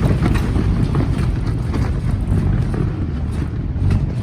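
Strong gale wind buffeting the microphone, a loud, deep rush of noise that swells and dips in gusts.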